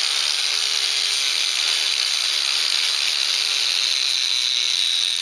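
Power grinder grinding down the front ears of a metal seat adapter plate: a steady high-pitched whine over a hiss.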